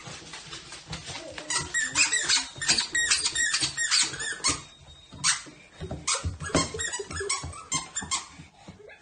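A dog giving a rapid series of short, high squeaky whines and yips.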